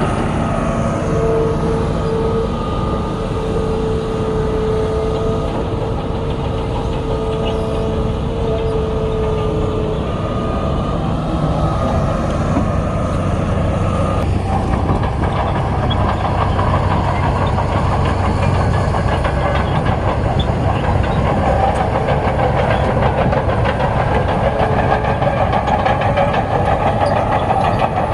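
Bulldozer's heavy diesel engine running under load, with a steady whine over the first third. From about halfway, a dense metallic clatter, typical of steel tracks, grows louder.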